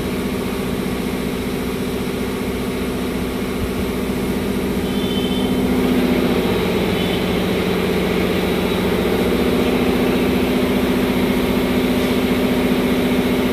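A vehicle engine running steadily with a low, even hum; its pitch shifts slightly and it grows a little louder about six seconds in.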